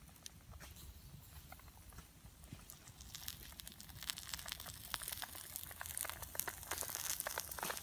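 Basted chicken roasting on a stick over embers, its skin and dripping glaze crackling and sizzling in rapid irregular pops that grow louder and denser about three seconds in.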